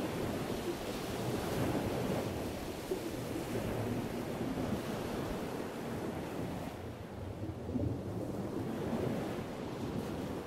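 Steady rushing ambience of ocean surf with a low rumble underneath; the high hiss dulls a little about seven seconds in.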